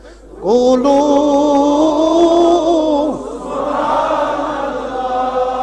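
A man's voice chanting one long drawn-out note in a sermon's recitation, held for about two and a half seconds, then a softer, more blurred stretch of chanting.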